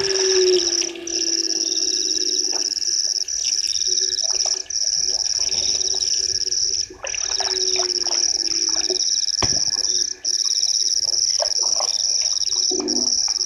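Night chorus of frogs and insects at a waterhole: a steady high-pitched ringing with a pulsed trill over it, several drawn-out lower calls that slide slightly down, and scattered short croaks. A single sharp click sounds about nine and a half seconds in.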